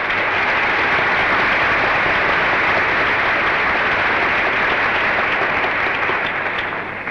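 Large audience applauding, welcoming a speaker who has just been announced to the platform. The clapping holds steady and dies away near the end.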